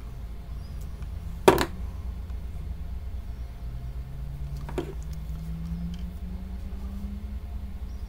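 Workbench handling noises over a steady low hum: a sharp click about one and a half seconds in and a softer click near five seconds, as a hand crimp tool and wire are handled.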